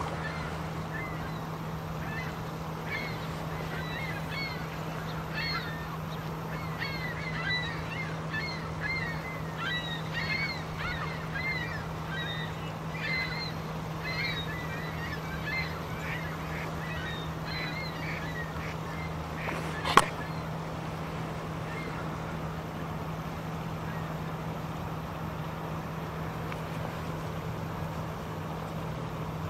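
Geese honking, many short overlapping calls through the first two-thirds, then dying away, over a steady low hum. A single sharp click about twenty seconds in.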